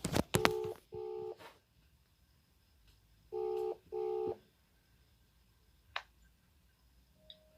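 Outgoing phone call ringing: two double rings, each a pair of short, low, steady beeps. A single click follows about six seconds in, and a short higher beep near the end.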